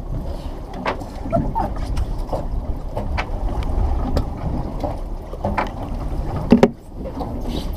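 Wind on the microphone and the steady low rumble of a small boat at sea, with scattered clicks and knocks and one louder knock about six and a half seconds in.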